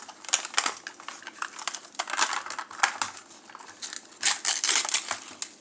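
Plastic slices of a Toy Mini Brands surprise capsule being pried apart by hand, with its paper wrapping crinkling: a run of rustles and small plastic clicks, loudest about four to five seconds in.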